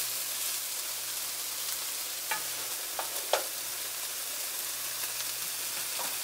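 Chopped onions and tomatoes with jalapeños frying in oil in nonstick pans: a steady sizzling hiss. A wooden spoon stirring them knocks lightly against the pan a few times around the middle.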